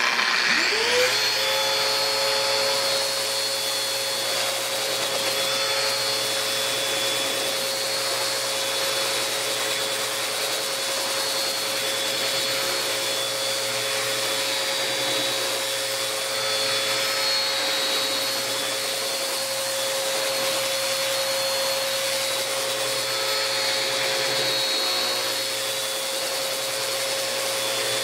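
Bosch 7.5-amp two-speed random orbital sander starting up, its whine rising to speed in about a second, then running steadily with its pad sanding a wooden board, an even motor tone under a broad sanding hiss.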